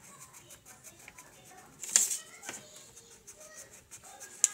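Coloured pencil scribbling on notebook paper in soft scratching strokes, with two sharp knocks, about two seconds in and near the end.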